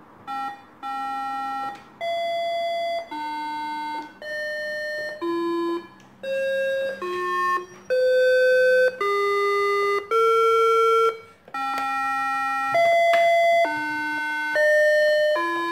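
AlphaByte Learn-PC children's toy laptop playing a slow tune of electronic beeps. Each note is held for about half a second to a second, and the pitch changes from note to note.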